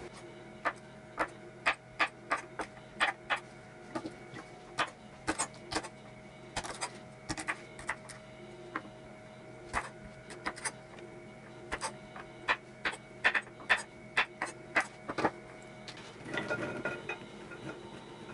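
Knife chopping garlic scapes on an end-grain wooden cutting board: sharp, irregular knocks of the blade through the stalks onto the wood, a couple a second, with a brief rustling noise near the end.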